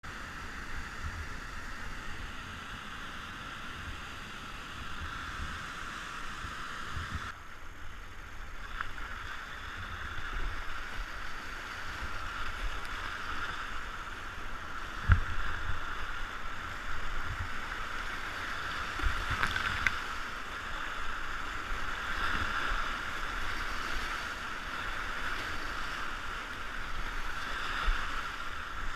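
Rushing whitewater heard from a kayak running a creek rapid, a steady hiss of churning water that changes abruptly about seven seconds in, with a few low thumps, the loudest about halfway through.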